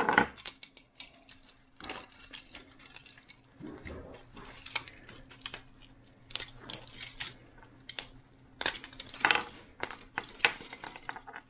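Hard plastic clicking, cracking and snapping as support material is pried and broken off 3D-printed parts by hand, with small pieces clacking against each other. It comes as many short, irregular sharp clicks, a few louder snaps clustered around the middle and near the end.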